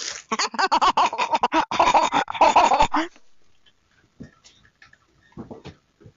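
A dog vocalising rapidly and loudly for about three seconds, then a few faint, scattered short sounds.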